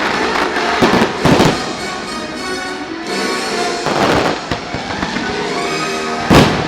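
Fireworks bursting in a few loud bangs over the show's music playing through loudspeakers: two close together about a second in, another around four seconds, and the loudest near the end.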